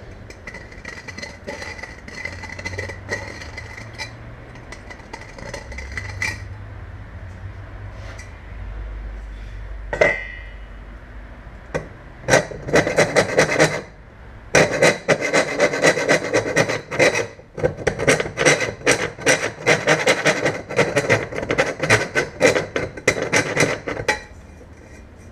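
Hand file rasping around the bulb hole of a metal headlight reflector to deburr it. Softer scraping at first, a single metallic clink about ten seconds in, then fast back-and-forth filing strokes, about three a second, from about twelve seconds until near the end.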